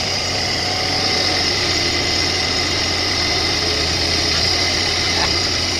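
Kubota U15-3 mini excavator's diesel engine running steadily while its hydraulic arm digs.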